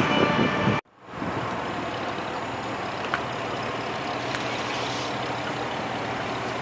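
A motor vehicle's engine idling steadily, a low even hum under outdoor background noise. The sound cuts out completely for a moment near the start, then resumes.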